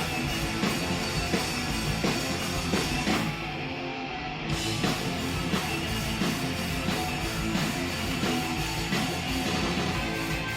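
Live rock band playing an instrumental break between verses: electric guitar, bass and drum kit, with no vocals. The high cymbal sound drops out for about a second, about three seconds in.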